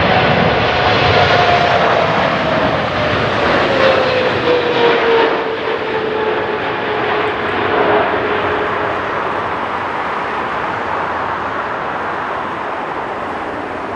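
Boeing 777-300ER's GE90 turbofan engines passing close on final approach: a loud jet rush with a fan whine that falls in pitch over the first several seconds as the airliner goes by, then the noise slowly fades.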